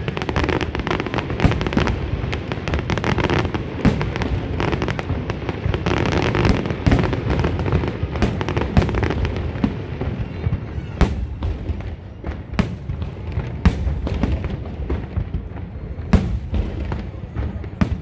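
Fireworks display: a dense barrage of overlapping bangs and crackling bursts that thins out about halfway through into separate sharp reports over a continuous low rumble.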